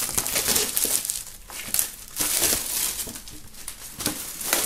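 Plastic shrink-wrap film crinkling and crackling in irregular bursts as it is peeled off a wooden box by hand.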